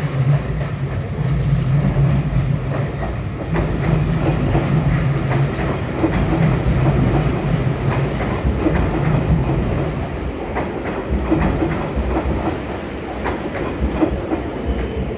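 Hanshin Railway 5000 series electric train pulling into the station and running past close by. A steady low hum sits under a clatter of wheel clicks over the rail joints and points. It eases off a little after about ten seconds as the train slows.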